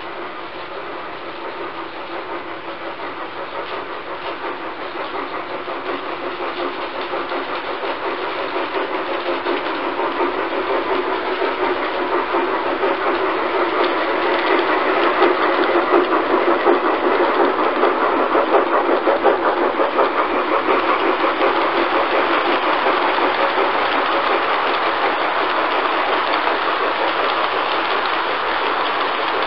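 G-scale model steam locomotives and freight wagons running on track: a steady mechanical rumble of motors and wheels with fast clicking over the rails. It grows louder through the first half as the locomotive comes up close, then holds level as the wagons roll past.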